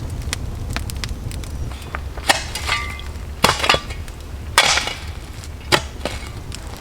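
About five sharp, irregular knocks and cracks, spaced a second or so apart, over a steady low rumble.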